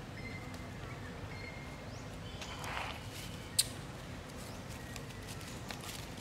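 Dry leaf litter rustling and crackling under a macaque's feet as it walks off. There is one sharp click about three and a half seconds in.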